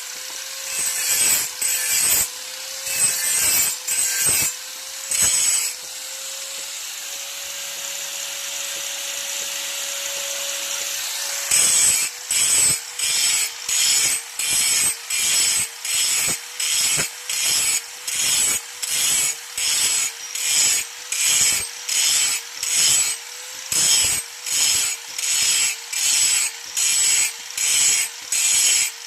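Metal blade being sharpened against a turning wheel in repeated rasping strokes, about two a second, over a steady hum that dips at each stroke. About six seconds in the strokes stop for several seconds, leaving only the hum and a steady hiss, then they resume.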